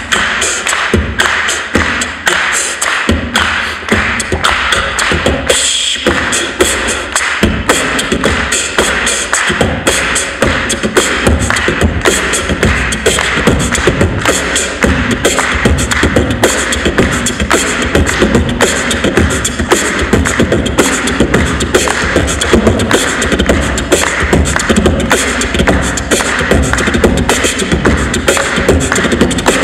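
Beatboxing into a handheld microphone: a fast, dense rhythm of vocal drum hits and clicks over a steady deep bass, without a break.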